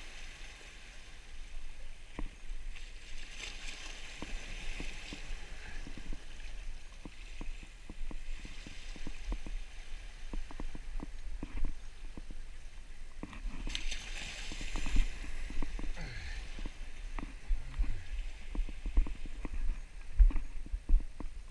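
Sea surf washing and sloshing against jetty boulders, swelling a few seconds in and again past the middle, with scattered knocks and scuffs of movement on the rocks and low rumbles.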